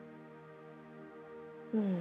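Soft new-age ambient music with steady held drone tones. Near the end, a woman's brief voiced sigh sliding down in pitch.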